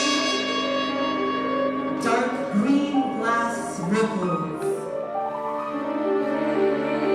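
Chamber ensemble of winds, brass, strings, piano and percussion playing held chords, with a few sharp struck accents between about two and five seconds in.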